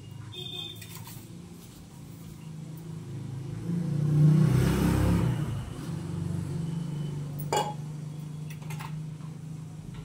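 A motor vehicle going past: a steady engine hum swells to its loudest about four to five seconds in, then fades back. Two short sharp clicks come near the end.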